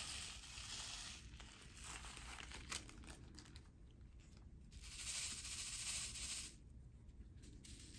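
Black plastic diamond-painting drills poured into a plastic drill tray and shaken, a hissing rattle in three spells of a second or so each, with some crinkling of the plastic bag.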